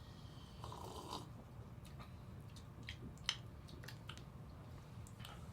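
Faint sipping and swallowing of soda, then a scatter of small clicks and taps, the sharpest about three seconds in.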